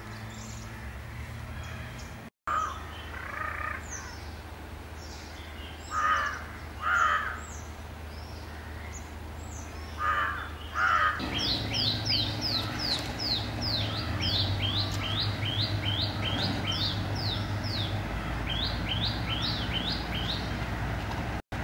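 Birds calling: a handful of harsh crow-like caws, then, from about halfway through, a fast run of short, high, falling chirps, about three a second, with a short break before the end.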